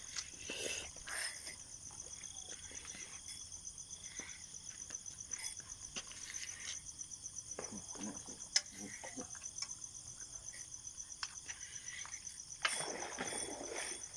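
Night insects trilling in a steady, high, pulsing chorus, with a few faint rustles, a sharp click past the middle, and a brief louder rustling near the end.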